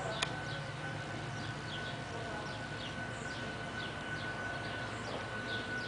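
Repeated short falling chirps, like small birds calling, over a steady high-pitched whine and a low hum, with a single click just after the start.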